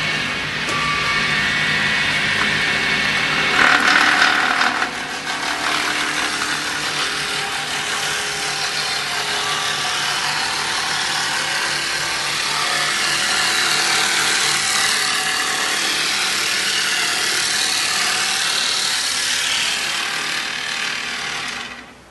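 Electric dowel-making machine (wood rounding machine) running, its cutter head shaving a square wooden stick into a round dowel as the stick is fed through by hand. A steady, loud cutting noise, loudest about four seconds in, that stops suddenly near the end.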